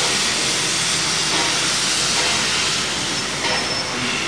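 Steam locomotive venting steam: a steady, continuous hiss.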